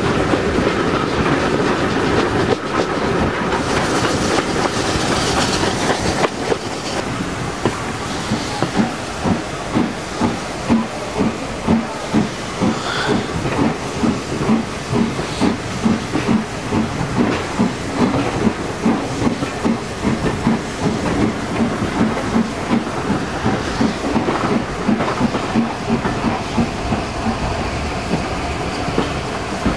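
Steam-hauled train heard from a carriage window close behind the locomotive. A steady running rush gives way, about eight seconds in, to a regular clickety-clack of wheels over rail joints, which eases near the end.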